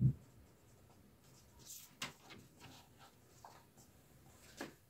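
Marker pen writing on a whiteboard: faint, irregular scratchy strokes and light taps as letters are formed. A soft low thump comes right at the start.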